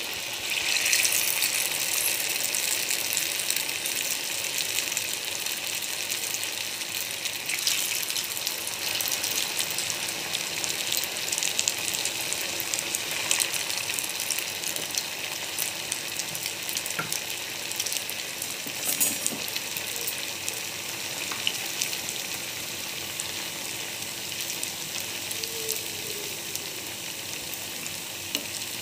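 Potato samosa rolls deep-frying in hot oil in a pan: a steady sizzling hiss with scattered crackles and pops, a little louder from about a second in.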